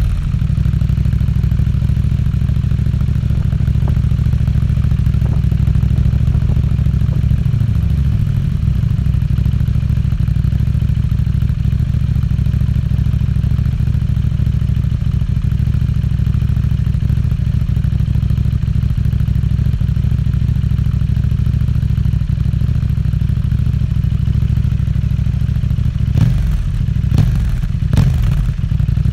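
KTM Duke 790's parallel-twin engine with an Akrapovič exhaust running steadily at idle just after being started, with a few short throttle blips near the end.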